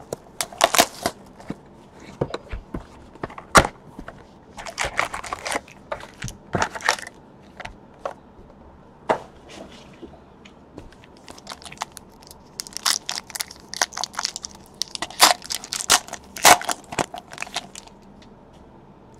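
A cardboard trading-card box and its wrapped card packs being torn open and handled by hand: irregular tearing, crinkling and crackling, in clusters about five seconds in and again in the last few seconds.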